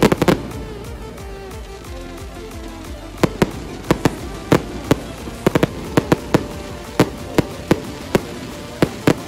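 Aerial fireworks going off in a series of sharp bangs and crackles. A tight cluster comes right at the start, then a lull, then several pops a second from about three seconds in.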